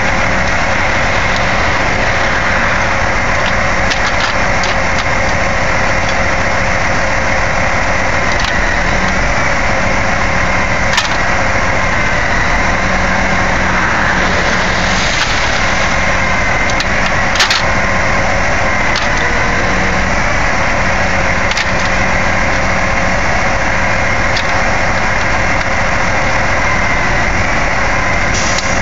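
Crane truck's engine running steadily under load, powering the boom hydraulics during a lift, with a couple of sharp clicks about eleven and seventeen seconds in.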